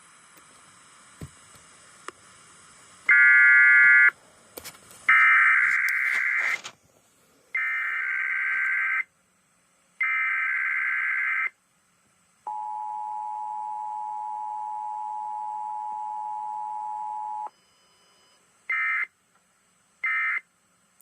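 Emergency Alert System test tones off a radio broadcast. Harsh, screeching digital data bursts of about a second each, repeated four times: the SAME header code. Then the steady two-tone attention signal runs for about five seconds, and near the end come two short data bursts.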